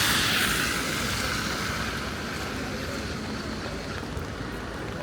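A vehicle passing on a rain-wet street, its tyres hissing loudest at the start and fading away over about two seconds, then steady rainy city background noise.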